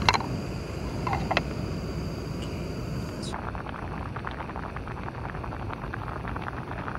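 Steady low rush of a camp stove burner under a pot, with a few light clinks in the first second and a half; a little over three seconds in it gives way to dense crackling bubbles of pasta water at the boil.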